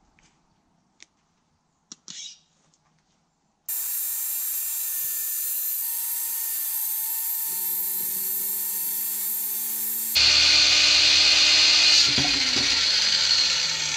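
A few faint clicks, then a handheld circular saw starts abruptly about four seconds in and runs steadily, cutting through a sheet of 3/4-inch MDF. It gets louder from about ten seconds in.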